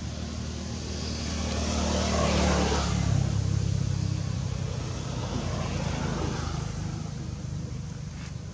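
A motor vehicle passing by: a low engine hum and road noise that swell to their loudest about two and a half seconds in, then slowly fade.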